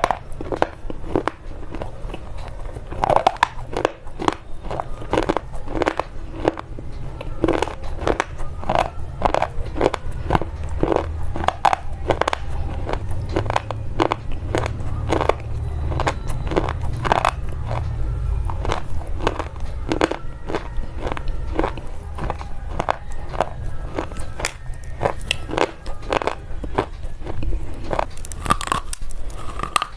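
Slate pencils being bitten and chewed close to the microphone: a steady run of sharp, brittle crunches, about one or two a second.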